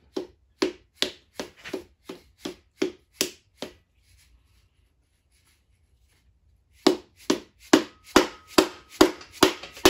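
An orange soft-faced mallet tapping a ringed piston down through a ring compressor into a cylinder bore of a Ford 427 SOHC Cammer V8 block. There are about ten light, even taps, a pause of about three seconds, then about ten more. The rings slide in without catching over the chamfered bore edges.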